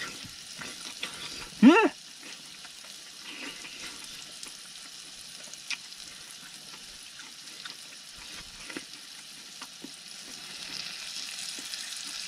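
Steak sizzling on a hot electric griddle plate, a steady hiss, with small clicks and scrapes of a knife and fork on the plate as it is cut. A brief vocal exclamation just under two seconds in.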